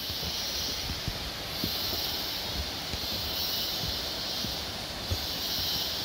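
Footsteps on a concrete forest path, faint irregular thuds, under a steady high hiss from the surrounding forest that swells and fades every few seconds.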